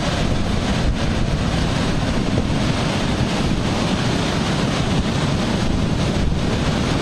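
Wind buffeting the microphone over the steady wash of rough surf.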